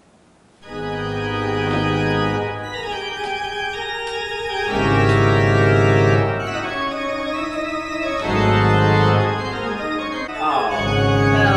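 Organ music: long held chords that come in suddenly about half a second in and change every couple of seconds, as a dramatic music cue.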